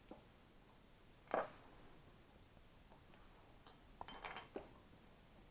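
Light metallic clinks of tools and small metal parts being handled: one sharp clink about a second in, then a few faint clicks and rattles around four seconds in, over quiet room tone.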